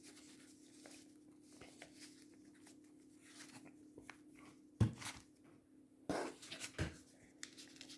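Fireworks being handled while a selection box is unpacked: faint scattered ticks, a soft knock a little under five seconds in, and a short rustle about a second later, over a faint steady hum.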